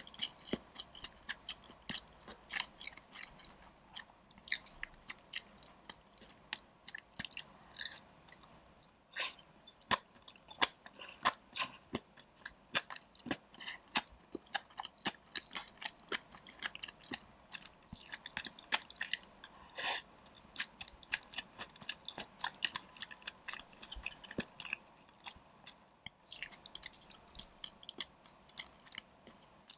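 Close-miked chewing of spicy dry pot (ma la xiang guo), a steady run of quick, irregular crisp crunches and wet mouth clicks.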